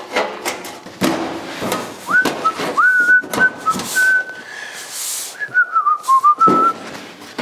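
A man whistling a few short notes that wander up and down, starting about two seconds in and stopping near the end. Scattered knocks and taps come from the sheet-metal floor panel being handled and pushed into place.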